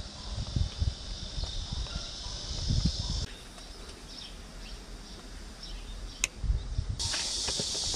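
Steady high chirring of insects. It drops at about three seconds and comes back louder near the end, with low knocking and rumble in the first three seconds and a single sharp click a little after six seconds.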